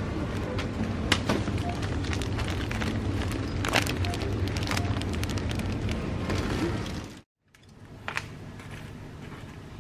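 Supermarket aisle ambience: a steady hum with scattered crinkles and clicks as plastic bags are picked up and put back on the shelf. About seven seconds in it cuts off to quieter room tone with a single click.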